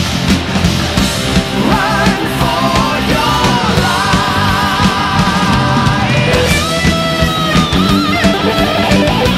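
Heavy rock music with electric guitar and drums.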